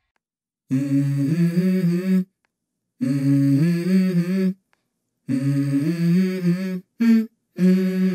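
Soundtrack music: a hummed vocal melody in phrases of about a second and a half, broken by short silent gaps, forming the intro of a hip hop song.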